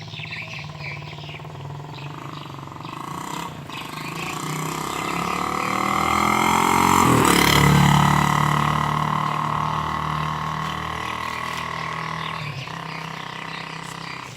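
A motor vehicle's engine passing by. It grows louder to a peak about halfway through, drops in pitch as it goes past, then fades away.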